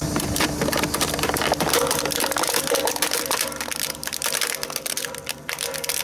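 Plastic toy police car cracking and snapping as the steel drum of a road roller rolls over it and crushes it, a dense run of sharp cracks that eases after about four seconds.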